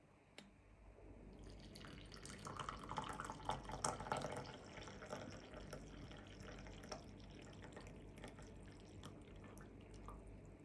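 Liquid pouring and dripping, faint: it builds about a second and a half in, is loudest around three to four seconds, then settles into a quieter trickle.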